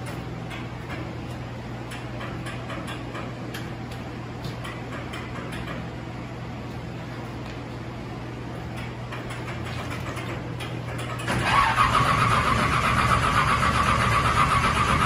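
Over a steady low hum, a starter motor cranks the race car's engine for about four seconds, loud and harsh, then stops.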